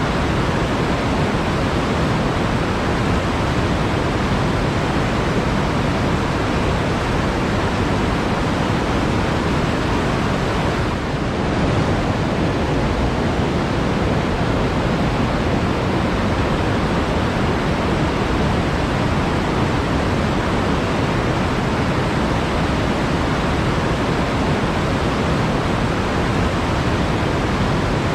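Flowing water rushing steadily and evenly, with a slight dip in level about eleven seconds in.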